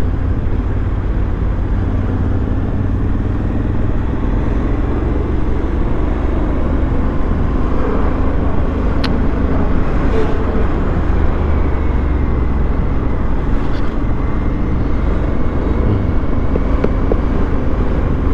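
Honda Africa Twin's parallel-twin engine running at a steady cruise on the move, mixed with a continuous rush of riding noise.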